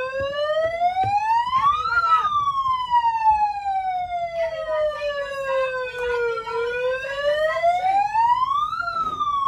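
A siren wailing in slow cycles: its pitch climbs over about two seconds, then sinks slowly over about four, then climbs and falls once more.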